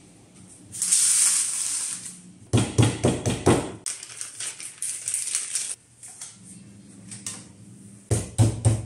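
Self-adhesive vinyl sheet being peeled from its paper backing and pressed down by hand onto a countertop. A hissing peel begins about a second in, followed by crackling rustles of the sheet and backing paper with soft knocks on the board, and a second burst of these near the end.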